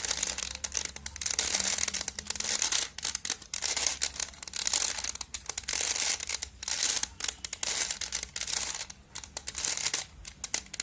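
Plastic Rubik's Cube being turned by hand, its layers clicking and scraping in quick runs of turns with short pauses between them.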